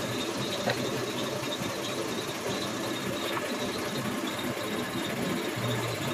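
A steady machine-like drone with a faint high whine, and a light click under a second in.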